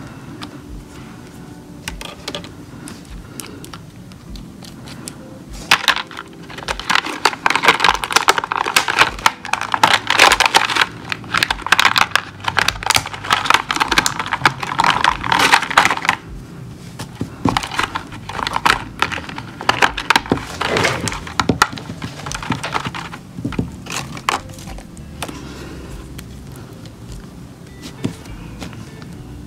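Thin clear plastic blister tray crackling and clicking as small gel polish bottles are pushed into and pulled out of it. A dense run of clicks starts about six seconds in and lasts about ten seconds, then gives way to lighter, scattered clicks and taps.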